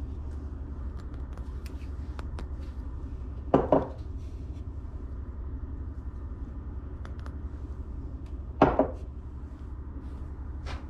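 Housewares being handled and set down on a shelf: two sharp clinks about five seconds apart, each a quick double knock with a short ring, over a steady low hum.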